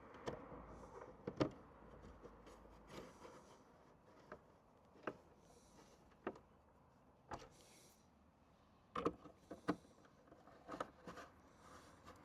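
Light, irregular clicks and knocks of hard plastic side-mirror housing parts being handled and fitted together, about a dozen taps with a cluster around nine to ten seconds in.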